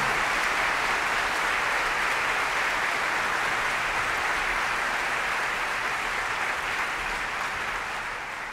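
Concert audience applauding: dense, steady clapping that slowly fades away toward the end.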